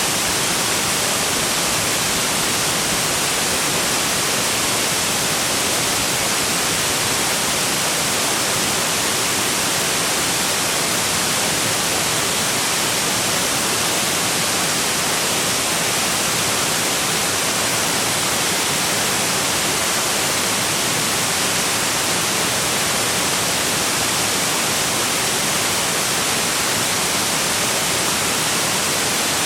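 Waterfall rushing: a steady, loud, even roar of falling water that does not change.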